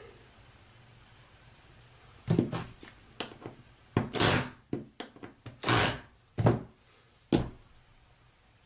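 Hair clipper blade being adjusted by hand: a run of short scrapes and clicks of the metal cutter and comb moving against each other and being handled, starting about two seconds in, with five or six louder scrapes.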